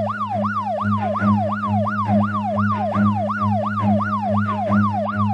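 Electronic police siren in a fast yelp: each sweep jumps up and slides back down, about three a second, over a steady low hum.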